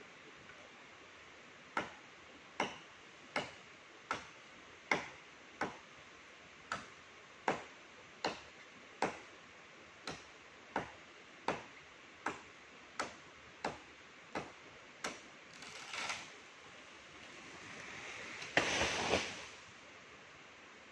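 A machete chopping into a standing tree trunk, about eighteen sharp, evenly spaced strikes a little more than one a second. Then a swelling rustle and a louder crash of leaves and branches near the end as the cut-off top of the trunk falls.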